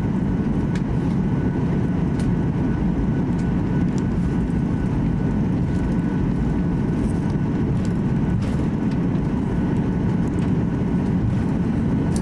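Cabin noise inside a Boeing 737-800 taxiing: the steady low rumble of its CFM56-7B engines at taxi power, with a faint steady whine above it and a few light clicks.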